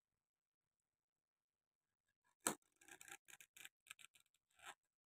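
Snap-on lid of a plastic takeaway food tub being prised open: one sharp snap about two and a half seconds in, then a run of small plastic clicks and crackles as the lid is peeled back.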